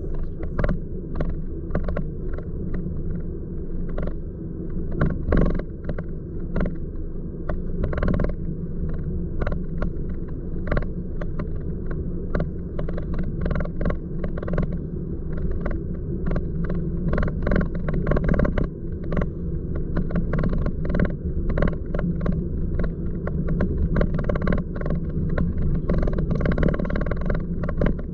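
Car driving slowly on a residential street, heard from inside the cabin: a steady low rumble of engine and tyres, broken by frequent short knocks and clicks.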